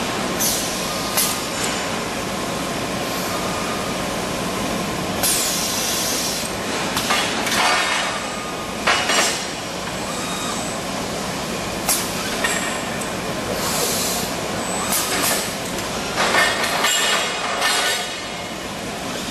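CNC tube bending machine with automatic loader running with a steady hum, broken by repeated short hisses of released compressed air and light metallic clinks as the tube is fed and bent.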